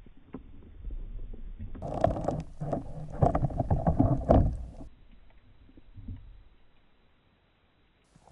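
Water sloshing and bubbling around an underwater camera, loudest in a choppy burst of about three seconds in the middle.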